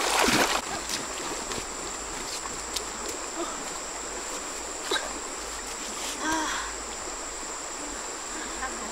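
Water splashing as a person wades out of a shallow river, dying away within the first second, then the steady rush of the flowing river with a constant high-pitched tone above it.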